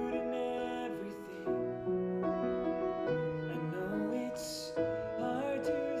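Background music: slow, held notes in chords that change about once a second.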